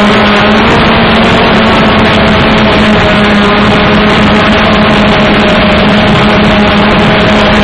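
A drone's motors and propellers buzz loudly and steadily as it hovers, heard close from its own onboard camera. The hum's pitch wavers slightly.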